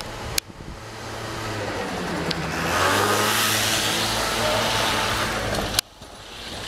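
A motor vehicle passing along the street, its engine hum and tyre noise swelling to a peak midway and then cutting off abruptly shortly before the end.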